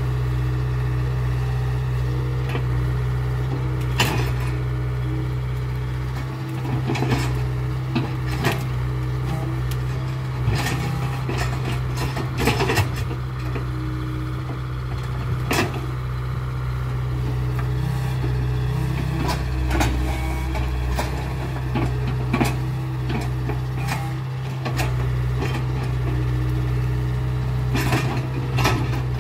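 Caterpillar 307 excavator's diesel engine running steadily, with frequent irregular sharp cracks and knocks as its bucket and mechanical thumb grab and break brush and branches.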